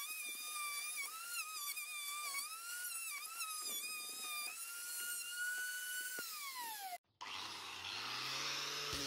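Plunge router in a planing sled whining at high pitch, the tone dipping and recovering as the bit takes load across the board. About six seconds in the pitch rises, then slides down steadily as the router is switched off and winds down. After a brief break, a rougher, lower hum of another power tool starts.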